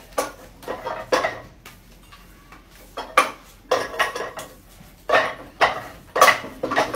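Wing Chun wooden dummy (mook jong) being struck: sharp wooden clacks as forearms and hands hit its wooden arms, in quick clusters of two or three knocks. There is a pause of about a second and a half early in the sequence.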